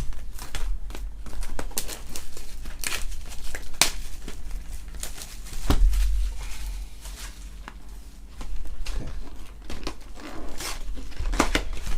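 Trading-card packaging being torn open and crinkled by hand: irregular tearing and crackling of wrapper, with a dull thud about six seconds in.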